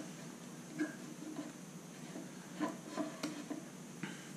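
A handful of light clicks and taps as a dial indicator and its magnetic base are repositioned and adjusted over an engine's valvetrain, the loudest cluster about two and a half to three and a half seconds in.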